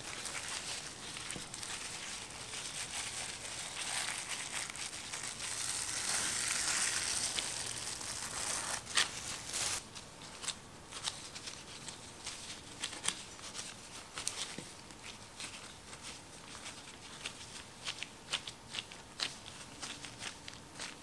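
Plastic cling film crinkling and rustling under gloved hands as it is pressed over tart dough in a tart tin, loudest a little past the middle. About halfway through the crinkling stops and gives way to scattered short clicks and taps as gloved fingers press the dough into the tin's edges.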